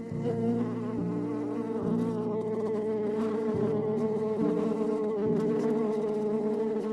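A flying insect buzzing steadily at one pitch with a slight waver, with low tones shifting beneath it every second or two.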